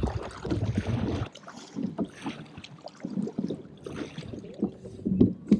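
Kayak paddle blades dipping and splashing in calm water, stroke after stroke, in an irregular series of short splashes. A low rumble under the splashes cuts off about a second in.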